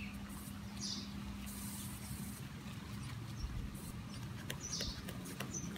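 Soft, wet squishing of hands rubbing shampoo lather into a puppy's wet belly fur, over a steady low hum. Two short high chirps sound, about a second in and near the end.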